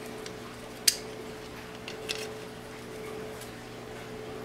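Parts of a plastic airsoft pistol slide clicking as they are handled and fitted: one sharp click about a second in and a softer one about two seconds in, with a few faint ticks. A steady hum runs underneath.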